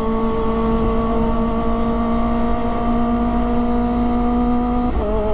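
Kawasaki ZX-25R's 249 cc inline-four engine running at steady high revs while riding, its pitch creeping slightly up, over wind rush on the microphone. Near the end the engine note breaks briefly and shifts pitch.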